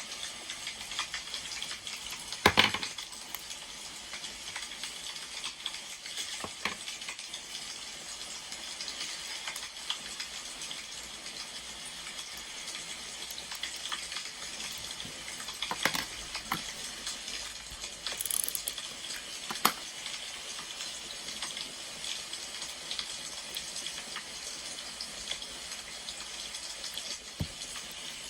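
Crackling wood fire: a steady hiss with scattered sharp pops, the loudest about two and a half seconds in.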